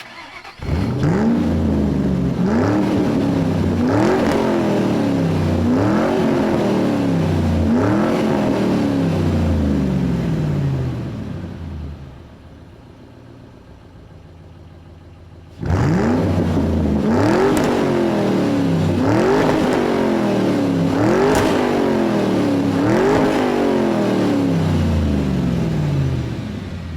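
An engine revved over and over. Each rev rises quickly in pitch and falls away more slowly, about every one and a half to two seconds. Partway through, the revving stops for a few seconds at a quieter idle, then starts again.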